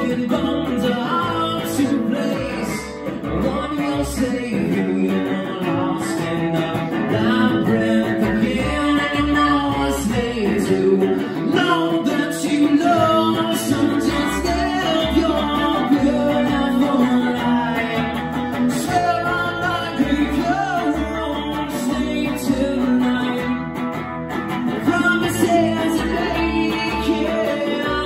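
A small band playing a song live: a man singing lead over a strummed electric guitar, with an upright double bass playing plucked low notes underneath.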